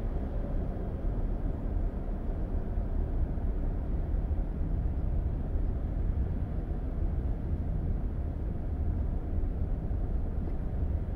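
Steady low rumble of a car driving along a highway, heard from inside the cabin: tyre, road and engine noise with no distinct events.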